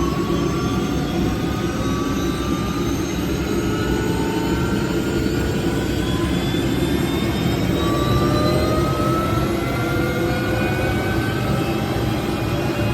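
OH-6 helicopter's Allison T63 turboshaft engine running up during start: a loud, steady turbine rush with several whines climbing slowly in pitch as the engine and rotor gain speed.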